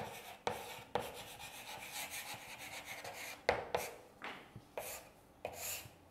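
Chalk writing on a chalkboard: a series of short scratchy strokes, each starting with a sharp tap of the chalk, about eight in all, as a word is written and lines are drawn.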